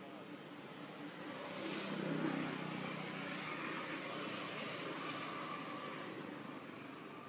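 Engine noise of a passing motor vehicle, swelling about two seconds in and then slowly fading.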